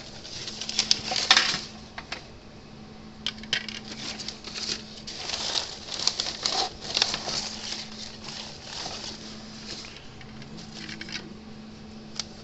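Small metal tools and parts clicking and clattering as they are rummaged through on a workbench, over a steady low hum.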